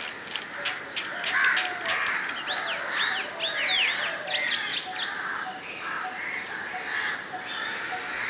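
Morning chorus of several birds chirping and calling together, with a quick run of repeated rising-and-falling whistled notes in the middle.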